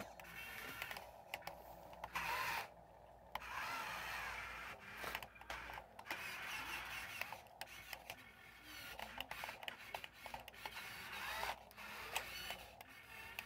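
Electric drive motor and gearbox of an RC model wheel loader whirring in short start-stop runs as it drives, with brief pauses and scattered clicks.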